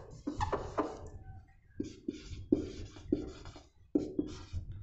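Marker pen writing on a whiteboard: a run of short, irregular scratchy strokes as letters are written.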